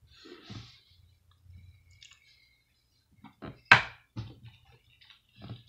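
Plastic action figure being handled and set down on a wooden tabletop: faint rustles, then a sharp knock about three and a half seconds in, followed by a few lighter taps.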